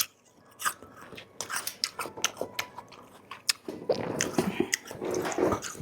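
Crisp, juicy yacon (snow lotus fruit) being bitten and chewed close to the microphone: a run of irregular wet crunches that comes thicker in the second half.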